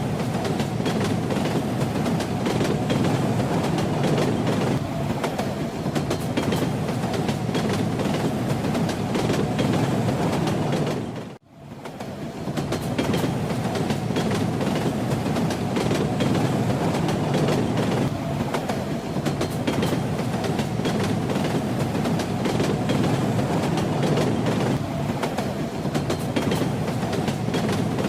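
A moving train with its wheels clacking over the rails, a steady rumble and rattle full of small clicks. About eleven seconds in, the sound drops away for a moment and comes straight back.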